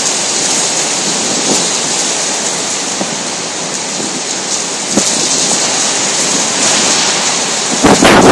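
Heavy hurricane rain pouring steadily, a dense hiss with a few sharp pattering clicks. Near the end a louder rush sweeps in briefly.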